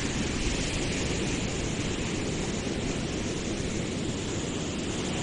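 Steady rush of ocean surf on the beach, with wind rumbling on the microphone.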